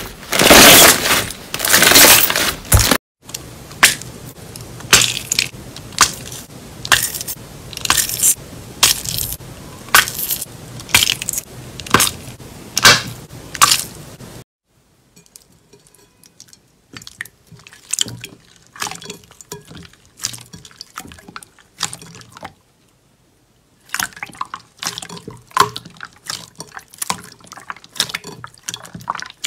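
Slime being squeezed and pressed by hand: a series of short, wet, sticky pops and squelches, densest and loudest in the first few seconds, then about one a second. There are brief silent breaks where one clip cuts to the next.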